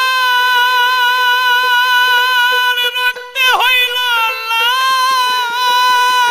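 High male voice holding a long sung note in Bangla folk pala gaan style. About halfway through it dips and swoops back up into a second long held note. A steady harmonium drone runs underneath.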